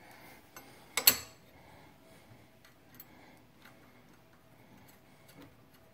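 One sharp metallic clank about a second in, then a few light metallic ticks: the front brake caliper's cover plate and hand tools being handled as the plate goes back on.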